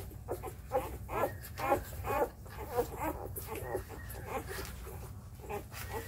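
Four-day-old Labrador puppies squeaking and whimpering while they nurse and jostle one another for the mother's teats. Many short, overlapping cries come thickest in the first half.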